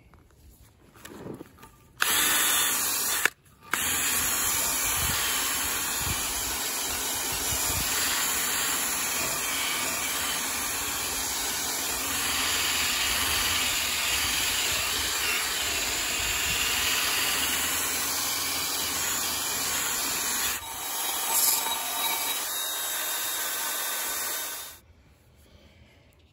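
Drill spinning a wire cup brush against a rusty, paint-flaked steel wheel, scrubbing off loose rust and paint: a steady scratching noise that starts about two seconds in, breaks off briefly just after, and stops near the end.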